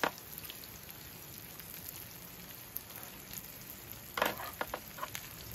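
Pork belly sizzling steadily in a grill pan on a portable butane stove, with a few light clicks as it is moved about with chopsticks. A brief voice sound about four seconds in.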